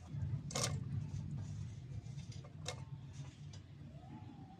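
Cut potato sticks dropped into an aluminium basin of water, giving two short knocks, about half a second in and again near the three-second mark, over a low rumble.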